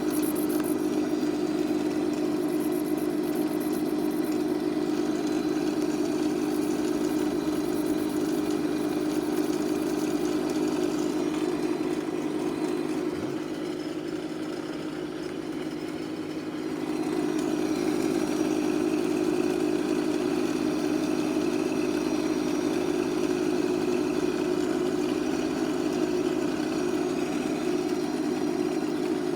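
Electric motor running a Stark No. 4 lathe through a belt: a steady machine hum with a strong low drone. About halfway through the sound eases off for a few seconds, then comes back up to full level.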